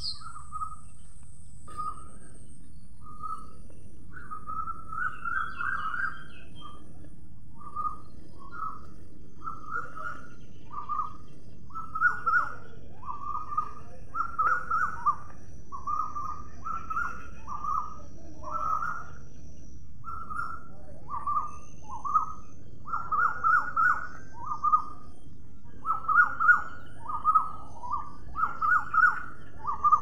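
A parrot calling in a long run of short, slightly falling calls, one or two a second, growing louder and more frequent in the second half.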